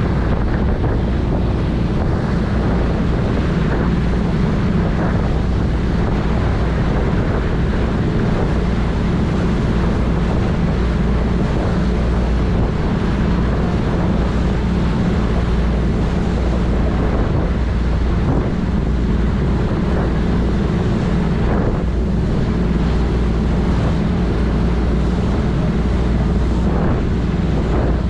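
A sightseeing ship's engines run with a steady low drone under the rushing of its churning wake, and wind buffets the microphone.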